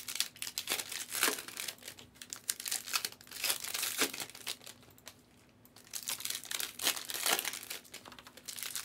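Plastic foil trading-card pack wrappers crinkling and crackling in irregular bursts as packs are opened and handled, with a short lull about five seconds in.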